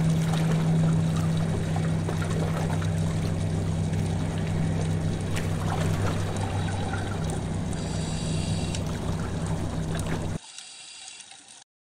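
Underwater recording: bubbling, watery noise over a steady low hum, cutting off abruptly about ten seconds in.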